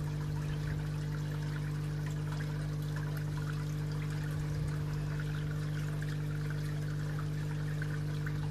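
Garden pond pump humming steadily, with water pouring and trickling into the pond.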